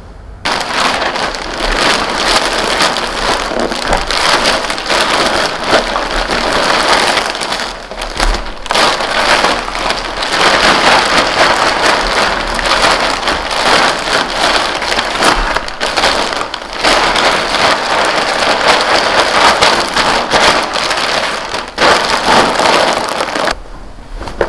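Plastic shopping bag and plastic-wrapped bedding packs crinkling and rustling close up as they are handled, a dense crackle that stops briefly at a few cuts.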